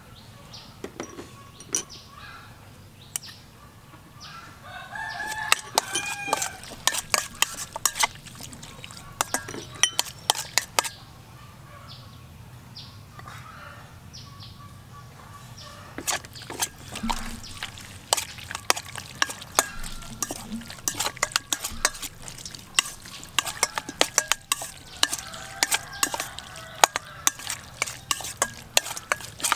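A metal spoon clinking and scraping against a stainless steel bowl while seasoning raw beef kidney pieces, in many sharp taps. A rooster crows about five seconds in, with chickens calling again later.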